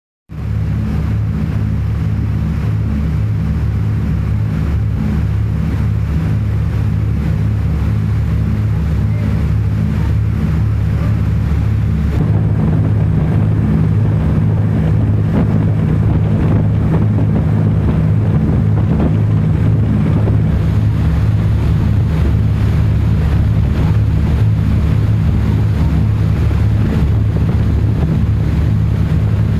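Passenger fast ferry running at speed: a steady low engine drone with wind buffeting the microphone and rushing water.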